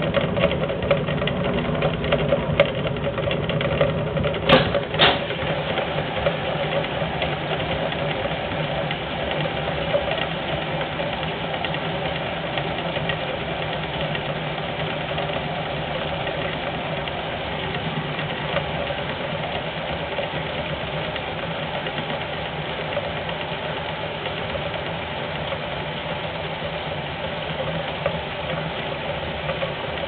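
1971 Simpson Fluid Drive washing machine running steadily with its tub spinning, the motor and drive giving a continuous hum. Two sharp clicks come close together about four to five seconds in.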